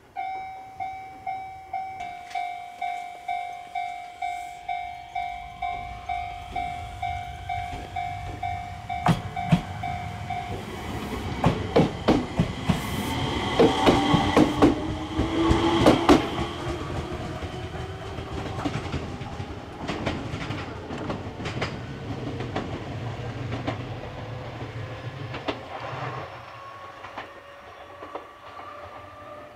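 Japanese level crossing alarm bell ringing about twice a second, stopping about ten seconds in. Then an Enshū Railway 2000-series electric train passes close by, with a run of wheel clicks over the rail joints and a motor whine that rises in pitch as it picks up speed.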